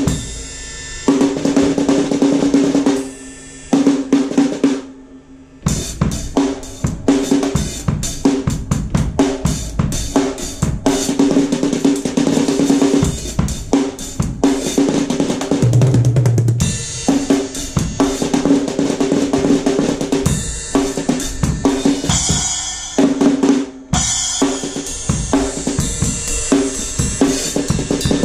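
Drum kit being played: rapid snare and tom strokes, rolls and fills with bass drum, hi-hat and Zildjian cymbal crashes. The drums ring with a pitched tone that recurs through the playing, and a deep bass note sounds briefly about two thirds of the way through.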